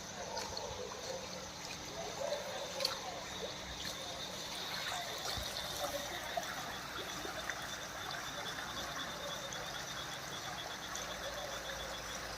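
Rainwater trickling and running steadily, with small splashes and drips.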